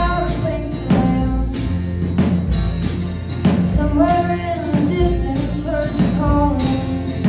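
Live band playing a song with acoustic guitar and drum kit keeping a steady beat. A female lead voice sings a line about halfway through.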